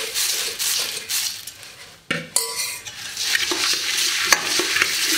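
Dry puffed rice poured into a stainless steel bowl with a crisp crackling hiss, then a couple of sharp clinks of a metal spoon on the bowl a little after two seconds in, and the spoon stirring the puffed rice, crackling and scraping against the steel.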